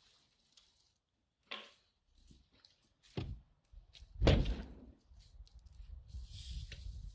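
A few sudden thuds, the loudest about four seconds in, then a steady low rumble.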